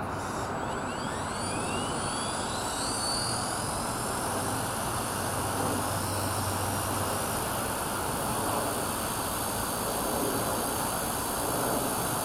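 WLtoys V950 RC helicopter spooling up: its electric motor's whine rises steeply in pitch over the first three seconds, then holds steady at head speed along with the rotor noise.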